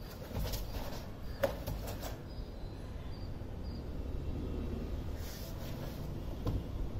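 Short sharp swishes and snaps of a cotton karate gi and bare feet on concrete as Hangetsu kata moves are made, the sharpest about a second and a half in and another with a high kick near the end, over a low steady rumble.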